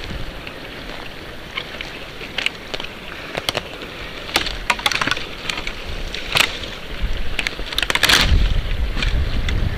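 Dry twigs and forest-floor litter cracking and snapping in scattered sharp cracks, coming thicker after a few seconds. They peak in a loud cluster with a low rumble on the microphone about eight seconds in.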